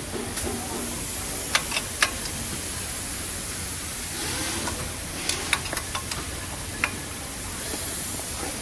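Several sharp clicks and light knocks over a steady background hiss: three about a second and a half to two seconds in, a quick cluster around five to six seconds, and one more near seven seconds.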